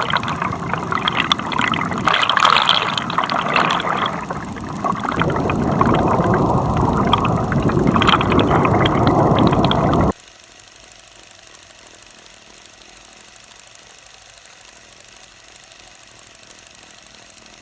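Water splashing and bubbling, which cuts off suddenly about ten seconds in, leaving a faint steady hiss.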